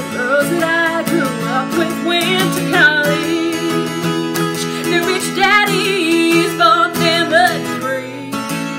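A woman singing a country song while strumming an acoustic guitar. Her voice drops out shortly before the end, leaving the guitar.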